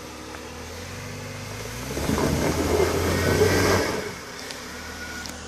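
Jeep Grand Cherokee WJ's engine revving up under load for about two seconds as the Jeep climbs a rocky dirt slope, then dropping back toward idle. The tyres scrabble on loose dirt and stones, kicking up dust.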